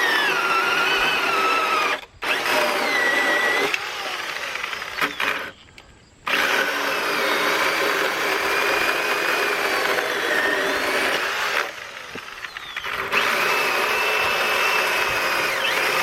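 Black & Decker Alligator Lopper corded electric chainsaw running in bursts. Its motor whine sags in pitch as the chain bites into a log and rises again as the load comes off. It stops briefly about two seconds in, again from about five and a half to six seconds, and runs quieter for about a second near twelve seconds.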